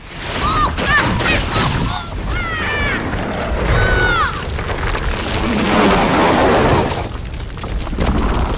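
Film soundtrack from a television: a loud rushing noise with several high whistling tones that glide down in pitch over the first four seconds, then a deep rumbling boom in the middle.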